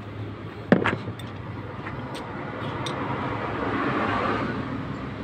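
Two sharp metal clinks about a second in as the jointed steel jack-handle rod is handled, then a passing road vehicle that swells to its loudest about four seconds in and fades.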